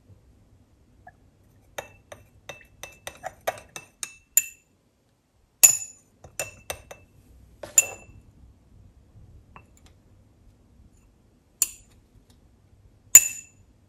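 A glass stirring rod tapping and clinking against the inside of a small glass beaker while hyaluronic acid powder is stirred into a water-based serum. A run of quick light taps comes a couple of seconds in, then a handful of louder, spaced-out ringing clinks, the loudest near the end.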